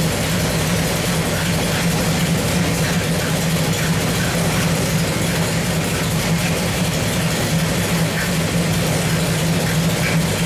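383 stroker small-block Chevrolet V8 running at a steady speed on an engine dynamometer: a constant, even engine drone with no revving.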